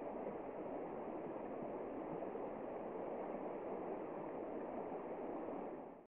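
Fast-flowing shallow river rushing steadily, a continuous even rush of water that fades out at the very end.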